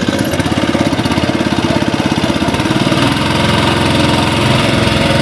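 Small outboard motor running loudly at a steady speed with a rapid, even putter, driving the boat along.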